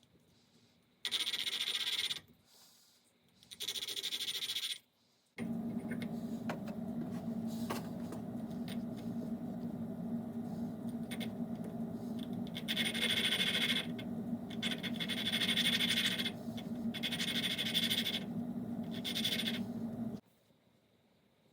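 Valves being lapped into a Honda ATC70 cylinder head: two short gritty scraping rasps, then a small motor hums steadily for about fifteen seconds with several louder gritty rasps over it, and cuts off suddenly near the end.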